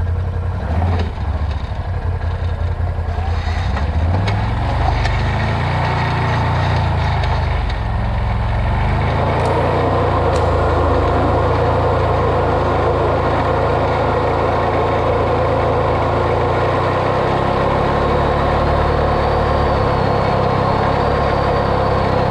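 Off-road vehicle's engine running under way, its pitch climbing about four seconds in and again about nine seconds in, then holding steady.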